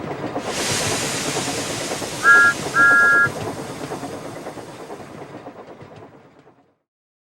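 Steam locomotive running with a steady clatter. A loud hiss of steam starts about half a second in, and two whistle blasts, a short one and then a longer one, each sounding two notes at once, come around two to three seconds in. The sound fades out near the end.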